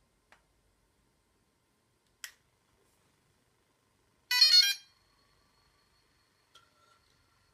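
Short electronic chime about halfway through, starting with an upward glide and lasting about half a second, after two faint clicks; a faint steady high tone hangs on after it.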